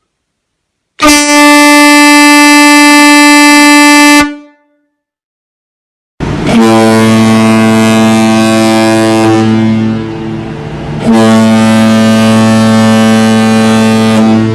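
A vehicle horn gives one steady blast of about three seconds that cuts off. After a short pause a much deeper ship's horn sounds two long blasts, the second running on.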